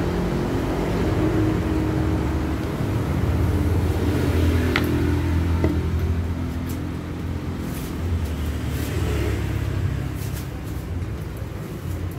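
A low, steady engine hum, like a motor vehicle running close by, louder for the first several seconds and easing off after about six seconds.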